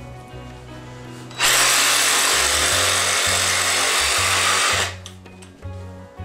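Cordless reciprocating saw running and cutting through a sheep carcass for about three and a half seconds, starting about a second and a half in and stopping just before the five-second mark.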